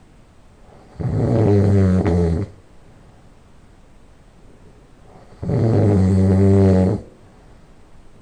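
Loud nasal snoring by a sleeping person: two long snores, each about a second and a half, some four seconds apart, with quiet between.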